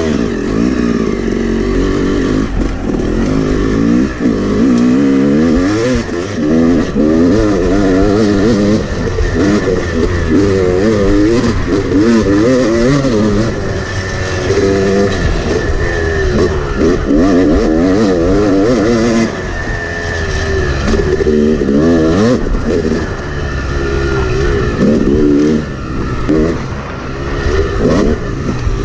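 Yamaha 250 two-stroke dirt bike engine under a rider, its pitch rising and falling over and over as the throttle is worked on and off.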